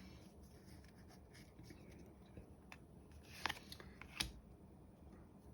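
Trading cards being handled and slid against each other: faint rubbing, with two brief sharper scrapes about three and a half and four seconds in.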